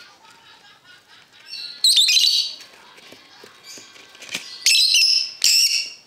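Young parrot chicks giving loud, harsh, high calls, three of them, each about half a second long: one about two seconds in and two near the end.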